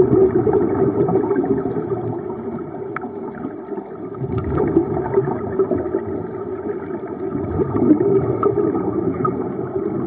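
Muffled underwater bubbling and gurgling from scuba divers' exhaled regulator bubbles, a steady wash that swells and ebbs in loudness.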